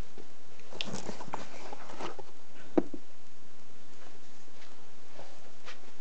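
Handling noise as a fabric-wrapped cardboard box is lifted off a meter: light rustling and scattered knocks, with one sharp click a little under three seconds in.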